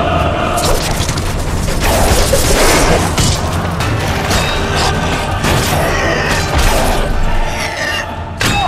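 Film battle soundtrack: orchestral score under repeated heavy booms, thuds and crashes of combat.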